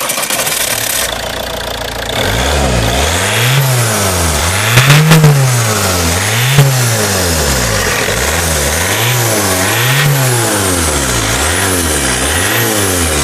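Ford Focus 2.0 TDCi four-cylinder diesel engine, just started, idling for about two seconds and then revved up and down about eight times in quick succession.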